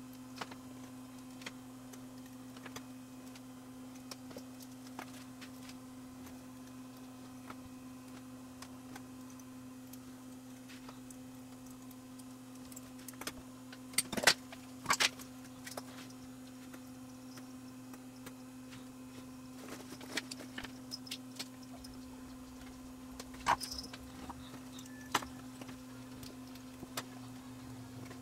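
Small clicks and taps of resistors and a printed circuit board being handled and set down on a wooden workbench, with a few louder knocks midway and another about two-thirds of the way through, over a steady low hum.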